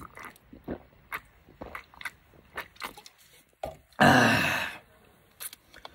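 Gulping a drink from a can, a string of small swallowing clicks, then about four seconds in a loud, breathy, voiced exhale as the drinker comes up for air.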